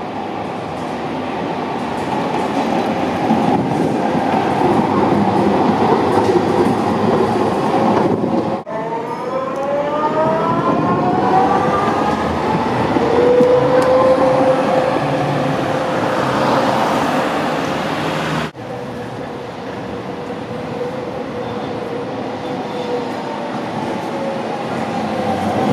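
Trams running on street track: a steady rumble of wheels on rail as trams approach and pass. In the middle a tram's whine rises in pitch as it picks up speed, then holds steady. The sound breaks off abruptly twice between shots.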